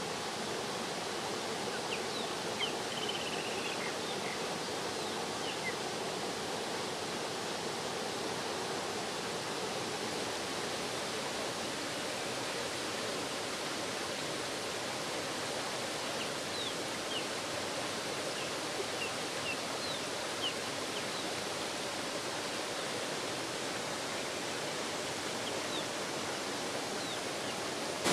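Water pouring over a small concrete weir and rushing down a shallow stream in a steady rush, with a few faint short high chirps here and there.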